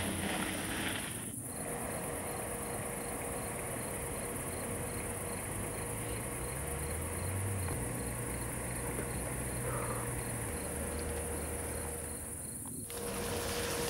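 Cricket chirping in an even, rapid rhythm of a few chirps a second over a low rumble and a steady hum. It starts just over a second in and cuts off near the end.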